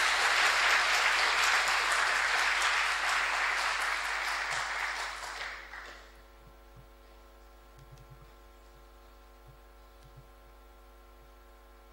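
Audience applauding. The applause dies away about six seconds in and leaves a faint, steady hum.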